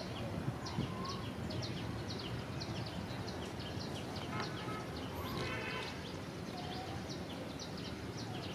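Outdoor ambience: a steady low background hiss with many short, high chirps repeating throughout, and a brief higher call about five and a half seconds in.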